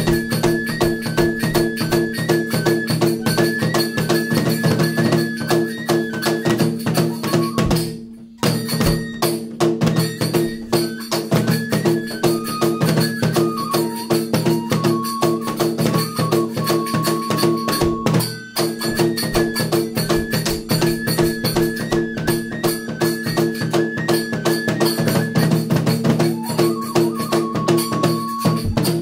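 Shrine festival hayashi music: a Japanese bamboo flute (fue) plays a stepping melody over fast, steady taiko drum beats. The music breaks off briefly twice, about eight and eighteen seconds in.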